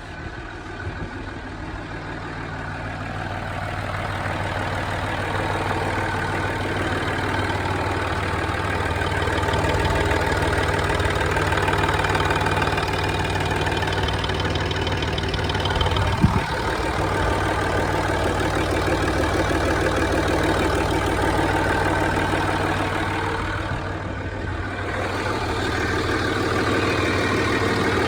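Land Rover Discovery 3's 2.7-litre TDV6 V6 diesel idling from a cold start, with a loud ticking, clacking noise over the engine hum. One sharp knock about halfway through.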